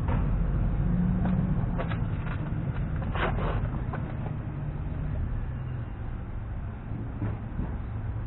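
A motor vehicle's engine running steadily with a low rumble, with a few light clicks in the first half.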